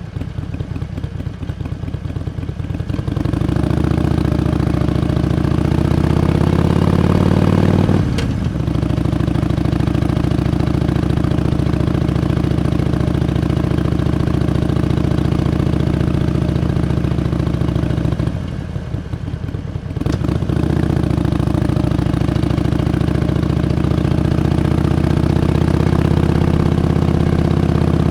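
Harley-Davidson Iron 883's air-cooled 883 cc V-twin under way. The engine climbs in pitch for a few seconds and breaks off sharply about eight seconds in as it shifts up, then pulls steadily. It eases off for a couple of seconds near the twenty-second mark before pulling again.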